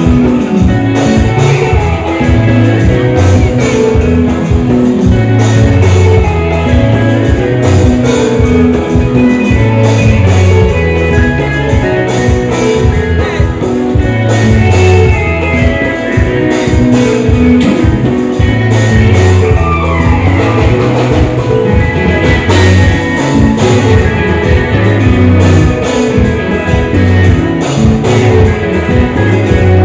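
Loud live band music from an ohangla-style stage set: electric guitar lines over a pounding bass and a steady drum-kit beat, played through a PA.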